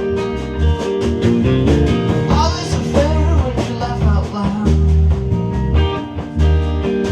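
Live rock band playing a song: guitar and bass over a steady beat, with a voice singing a wavering line near the middle.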